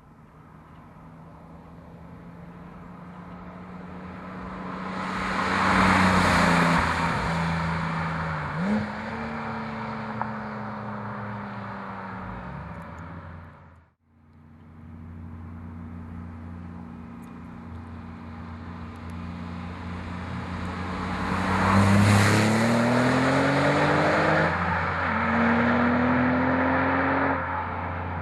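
Porsche 997.2 Turbo's 3.8-litre twin-turbo flat-six, fitted with 70 mm Fabspeed Maxflo mufflers, accelerating hard in two separate takes. Each time the exhaust note climbs to a loud peak, drops at an upshift, and climbs again.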